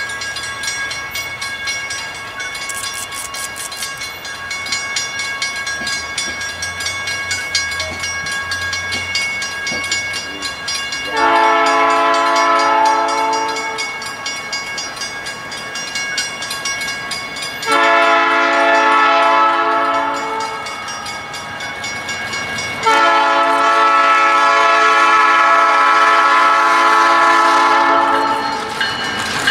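A Canadian Pacific EMD F-unit diesel locomotive's multi-chime air horn sounds three long blasts as the train approaches. The last blast is the longest, about five seconds.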